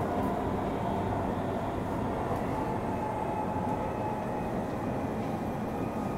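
Tokyu 3000 series electric train running between stations, heard on board: a steady rumble of wheels on rail, with a faint high tone that drifts slightly lower midway.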